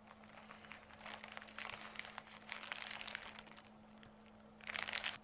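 Clear plastic bag crinkling as it is handled close to the microphone, with a louder burst of crinkling near the end.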